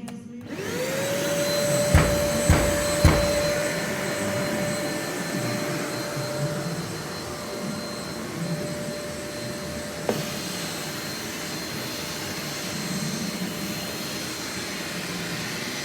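Henry tub vacuum cleaner switched on about half a second in, its motor spinning up to a steady whine over a loud rush of air, then running on. Three sharp knocks about two to three seconds in and another around ten seconds in.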